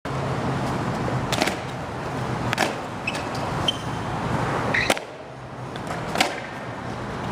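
Longboard deck and urethane wheels knocking on concrete during freestyle flip tricks: a series of sharp clacks as the board is flipped, slapped down and caught, over steady outdoor noise.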